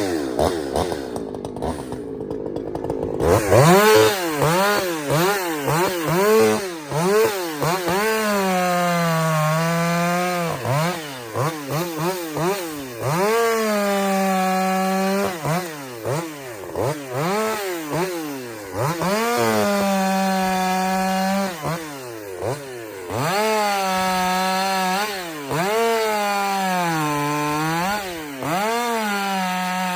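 Ported Husqvarna 359 two-stroke chainsaw bucking firewood: the engine is blipped up and down between cuts and held at full throttle in about four long cuts of two to three seconds each, its pitch sagging slightly under load in the wood.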